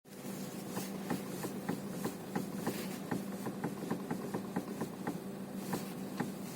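Renault Megane 3 steering knocking as the wheel is turned with the car standing still: a rapid run of short knocks, about three a second, over a steady hum. It is a steering fault that the owner suspects lies in the steering rack.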